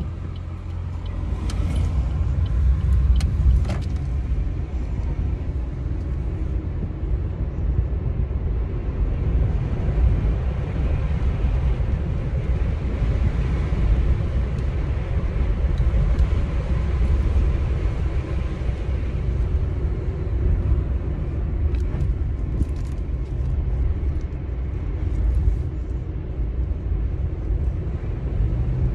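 A car being driven, heard from inside the cabin: a steady low rumble of engine and road noise. A few light clicks come through about two to four seconds in and again at about twenty-two seconds.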